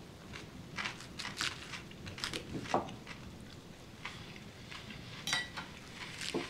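Teaspoon stirring in a small ceramic coffee cup on its saucer: a string of light, irregular clinks, one about five seconds in louder and briefly ringing.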